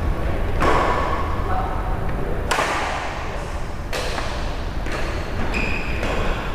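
Badminton rackets striking a shuttlecock during a rally: four sharp hits about one and a half seconds apart, each echoing briefly in a large hall.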